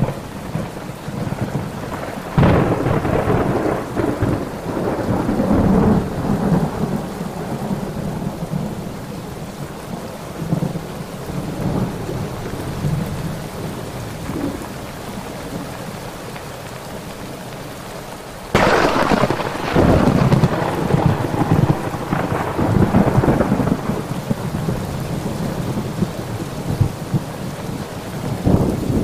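Thunderstorm: steady rain with thunder. A clap breaks suddenly about two seconds in and rumbles away over several seconds, a louder one comes about two-thirds of the way through, and another starts near the end.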